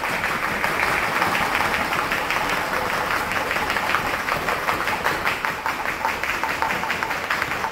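Several skipping ropes whipping the floor mats together with the children's feet landing. The result is a fast, overlapping run of light clicks with no break.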